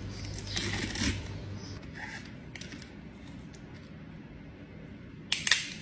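Baby spinach leaves rustling as they are pressed by hand down into a tall clear jar, with a louder brief crackle near the end.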